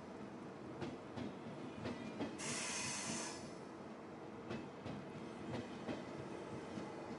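ICE high-speed train rolling slowly past along the platform, its wheels clicking now and then over the rail joints over a steady rumble. A brief high hiss rises about two and a half seconds in and lasts about a second.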